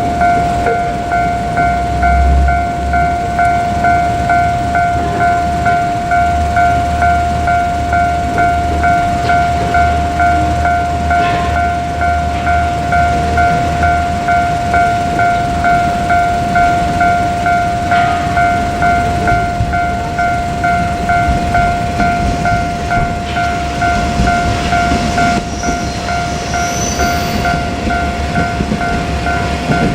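Japanese railway level-crossing alarm ringing in a fast, even repeat, with the rumble of an approaching KiHa 47 diesel railcar underneath it.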